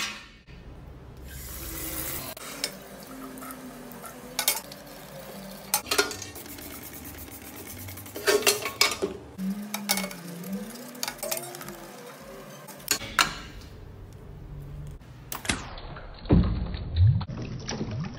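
A sheet-metal amplifier cover being scrubbed with a brush in a ceramic washbasin, clanking and knocking against the basin several times. Near the end it is plunged and sloshed in a bucket of water.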